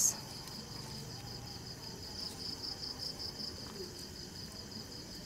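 Crickets chirping: a steady high-pitched trill that pulses slightly.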